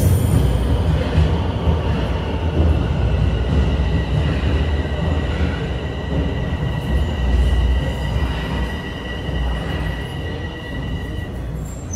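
Bombardier Toronto Rocket subway train pulling in and slowing to a stop: a loud rumble of wheels on rails that gradually grows quieter, with a steady high squeal in two tones that dies away near the end.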